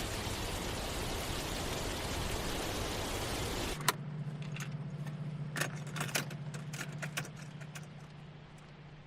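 Steady rain-like hiss that cuts off about four seconds in with a sharp click. Then a steady low car hum with keys jangling and a scattering of small clicks.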